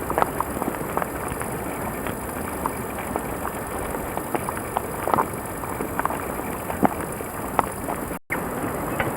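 Walking through a forest: scattered crackles and snaps of leaves and twigs underfoot over a steady hiss from the JVC VHS-C camcorder. The sound cuts out completely for a split second near the end.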